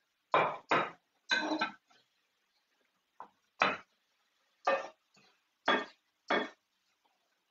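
Metal tongs knocking against a frying pan while lifting pasta: about seven separate clanks, each ringing briefly, at irregular intervals.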